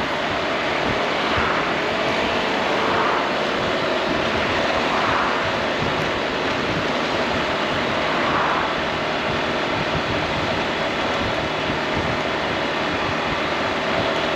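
Honda ADV 350 scooter underway: a steady rush of wind and road noise over the helmet or bike microphone, with the single-cylinder engine's hum underneath, swelling softly every second or two.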